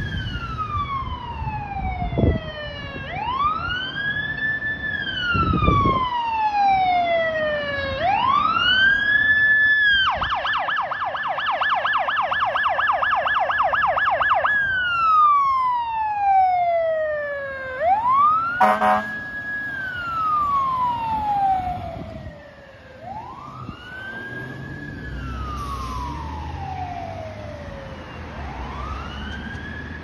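Fire engine's siren wailing, rising and falling about every five seconds, switching to a fast yelp for about four seconds a third of the way in, with a short air-horn blast a little past the middle. Low engine and road rumble comes in near the end as the truck passes.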